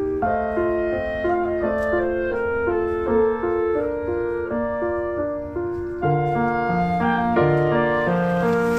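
Instrumental background music: a slow melody of held, keyboard-like notes, with a lower part coming in about six seconds in.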